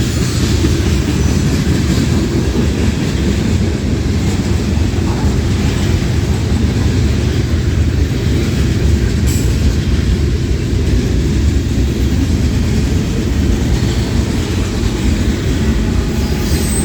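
Freight cars of a manifest freight train rolling past close by: a steady, even noise of steel wheels on rail, heaviest in the low range, without a break.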